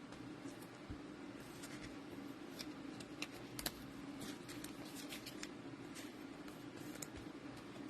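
Faint, scattered clicks and soft rustles of trading cards and card packs being handled, over a steady low hum.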